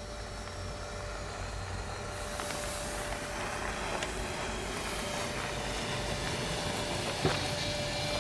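Audi A3 hatchback driving toward the listener on a dirt road, its engine and tyre noise growing steadily louder as it approaches.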